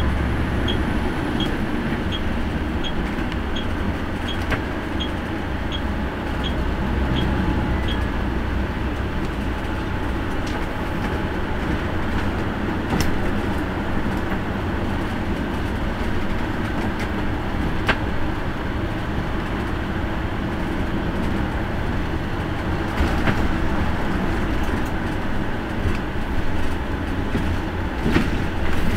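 Coach bus running on the road, heard from the driver's cab: a steady engine and road rumble. For the first eight seconds a light tick repeats about one and a half times a second, and there are a few sharp knocks later on.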